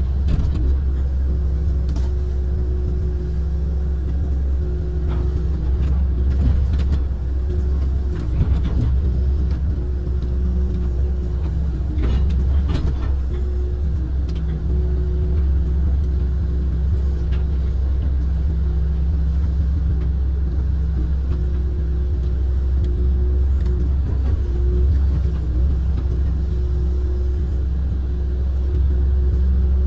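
Amphibious excavator's diesel engine running steadily under working load, heard from the cab as a low drone. Short cracks and scrapes come through a few times as the bucket tears through brush, roots and mud.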